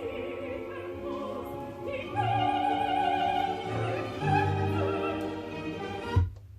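Operatic singing with orchestra played back through the Dual KA 20 stereo receiver. The music cuts off suddenly with a short thump near the end, leaving a low steady hum.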